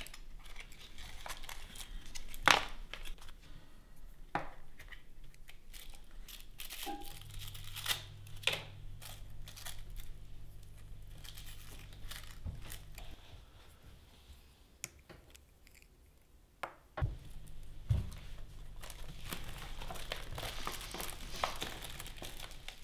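Paper and packaging crinkling and rustling with scattered small clicks, as a cigarette is rolled by hand; a few sharper clicks and knocks stand out, the loudest about two and a half seconds in and near the end.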